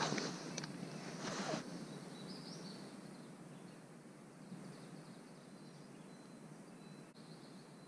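Brief rustling of camouflage clothing and dry leaf litter as a seated hunter shifts his position, twice in the first second and a half. After that there is quiet woodland background with a faint bird chirp.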